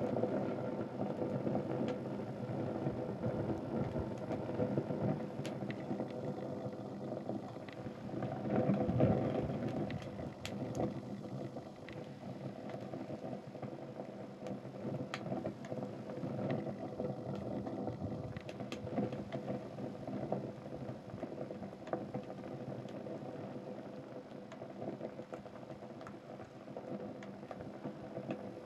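Pile of burning sneakers crackling as it burns: a steady rush of flame with scattered sharp pops and snaps, swelling briefly about nine seconds in.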